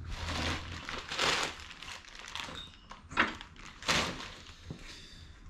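Plastic bag crinkling and rustling as it is pulled off a cylinder head, with a few louder crackles.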